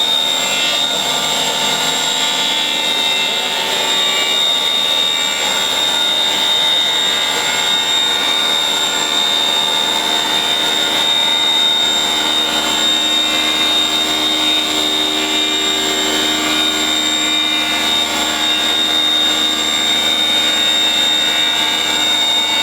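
Glass CNC machining center running steadily, its spindle giving a constant high-pitched whine over a steady mechanical hum.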